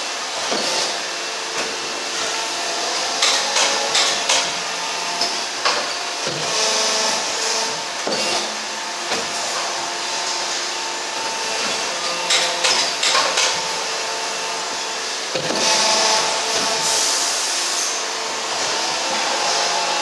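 Hydraulic injection moulding machine running: a steady hum and whine from the pump under an even hiss, with runs of sharp clicks a few seconds in and again past the middle.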